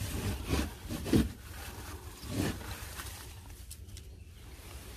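Plastic scoop scraping and rustling through wood-shaving bedding while droppings are scooped out of a chicken coop: a few short scrapes in the first couple of seconds, then quieter.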